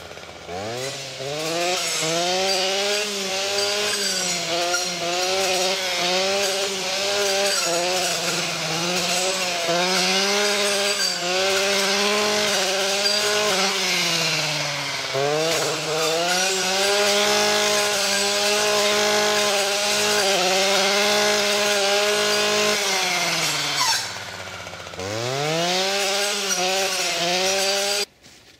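Stihl FS 240 C-E brushcutter's two-stroke engine revving up to full throttle and held high while clearing saplings and brush, with small wavers as the blade bites. The revs dip briefly twice and climb back each time, and the sound stops abruptly near the end.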